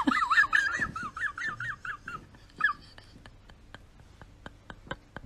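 An animal's high, fast-wavering whining cry for about the first three seconds, followed by a run of light, evenly spaced clicks, about four a second.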